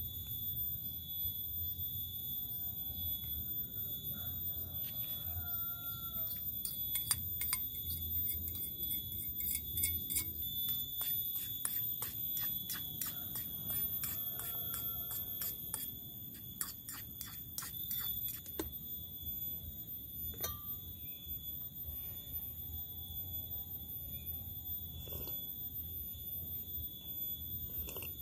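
Rapid clicking of a utensil mixing and grinding a tofu, egg and flour dough, lasting about ten seconds in the middle, over a steady high-pitched whine.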